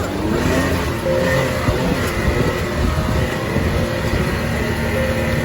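An ATV engine running as it is ridden, a steady drone with no breaks.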